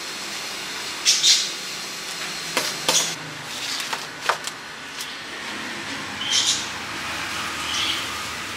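Steady street-stall background noise, broken by a few sharp clicks and short hissy rustles.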